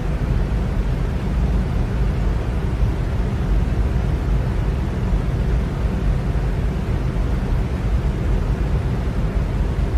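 Electric fan running steadily: an even, unchanging rush of air with a low rumble underneath.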